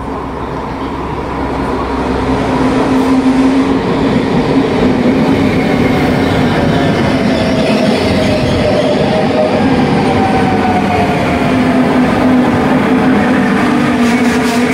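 Trenord S6 double-deck electric suburban train pulling in alongside the platform to stop. A rumble of wheels on the rails builds over the first few seconds and then holds steady, with a whine that falls in pitch as the train slows.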